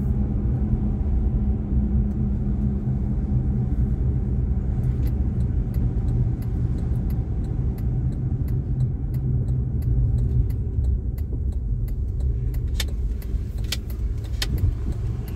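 Car driving slowly, heard from inside the cabin: a steady low engine and road rumble. In the second half, scattered light clicks and rattles, a few sharper ones near the end.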